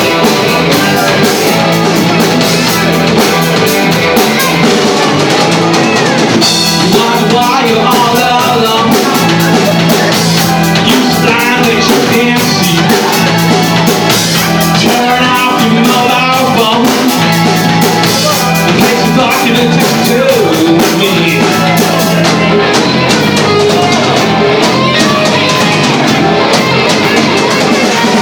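Live rock band playing loud, with drum kit, electric guitar and bass, and a singer.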